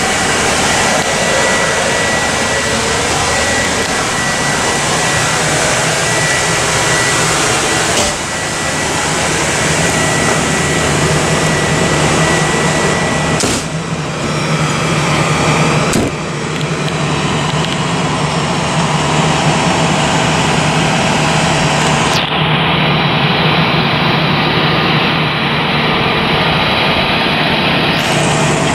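Steady loud rush and hum of a running Ford F-450 ambulance, its climate-control blowers going with a thin high whine through the first half. From the middle on, a low hum of the engine idling sits under it. The sound changes abruptly several times.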